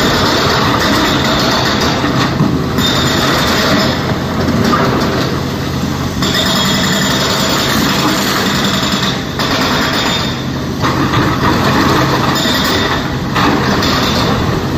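SANY crawler excavator working a pile of blasted rock: its diesel engine runs with a steady low hum under load while the steel bucket scrapes and grinds through the broken stone. The grinding comes in spells and eases briefly a couple of times.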